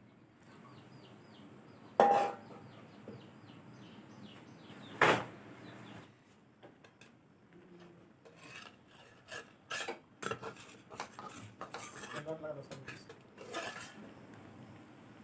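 Metal cooking utensils clanking against a pot: two loud clanks about two and five seconds in, followed by a run of lighter clinks and scrapes.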